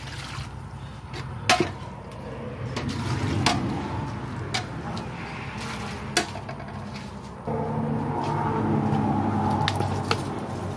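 Metal ladle clinking and scraping against a large aluminium cooking pot as an eel stew is stirred, with several sharp knocks, the loudest about a second and a half in. A steady low hum runs underneath and turns into a louder, steadier drone about seven and a half seconds in.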